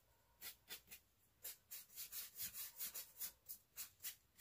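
Soft, scratchy swishes of a paintbrush's bristles stroking and dabbing acrylic paint onto a cardboard surface, a few strokes a second, quickening in the second half.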